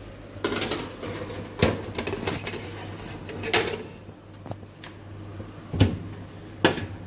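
Oven door and baking tray being handled: a run of knocks and clunks, about six in all, the loudest near the end.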